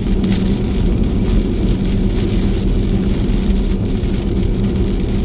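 Loud, steady rumble and hiss of strong wind buffeting the microphone.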